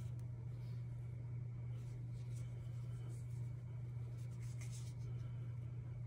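A steady low hum throughout, with faint soft rubbing of a cloth glove on a closed folding knife as it is turned in the hand, most noticeable around two and four and a half seconds in.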